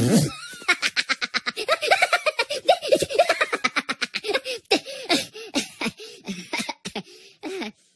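Minions' high-pitched cartoon laughter: a rapid run of giggling laughs, several a second, that begins about half a second in and gradually slows and fades toward the end.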